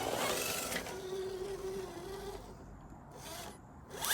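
Electric RC rock crawler's motor and gearbox whining at low speed, with a steady whine for a second or so. The sound then drops away quieter near the end.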